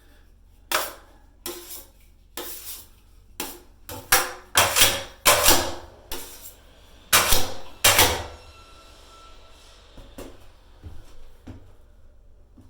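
Drywall knife scraping and knocking against a container while loading old joint compound: a run of about a dozen sharp metal scrapes and clanks, then a few lighter taps near the end.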